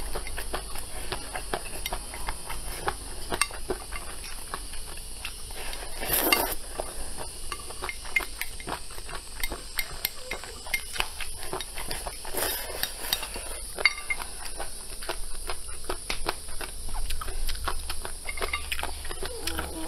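Close-miked eating of noodles: wet chewing, lip smacks and mouth clicks, with two longer slurps about six and twelve seconds in, and wooden chopsticks tapping against a ceramic bowl.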